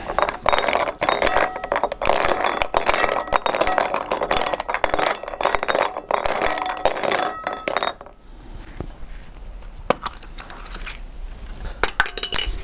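Draw balls being stirred by hand in a glass bowl, clinking and rattling against the glass and each other in a dense clatter for about eight seconds, then only a few separate clicks.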